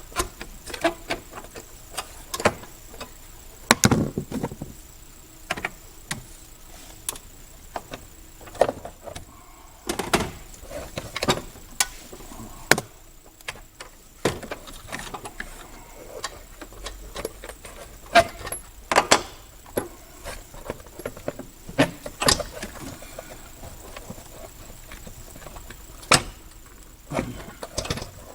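Hands-on work on a car's plastic trim and parts: irregular sharp clicks, knocks and light clatter, some louder than others, spread through the whole stretch.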